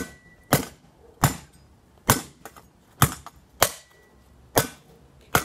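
A small metal hand spade striking an iPhone again and again: about eight sharp, hard smacks, roughly one every 0.7 s, bending the phone's body.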